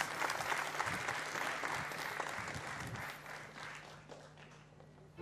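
Audience applauding, the clapping dying away over the last couple of seconds.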